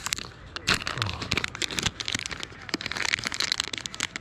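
Foil-and-plastic bait pouch of Berkley PowerBait crinkling and crackling in the hands as it is handled, a dense run of irregular sharp crackles.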